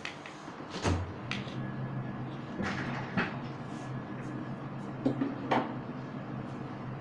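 A freezer door is opened and plastic containers of shampoo are set inside: a series of sharp knocks and clatters, with a low steady hum starting about a second in.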